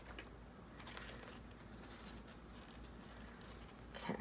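Faint rustling and crinkling of paper junk mail handled by hand, an envelope being worked open, with a few light paper ticks.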